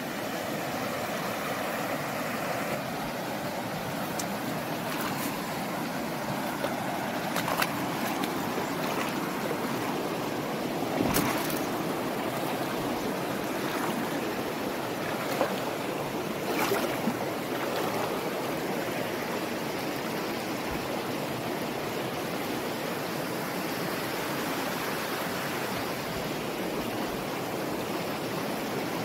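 Shallow river rushing over rocks and small rapids, a steady, even wash of water. A few short knocks stand out partway through.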